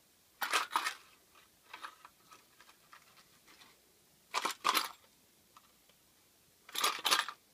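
A box of staples shaken three times, each shake a quick double rattle, with pauses of a few seconds between.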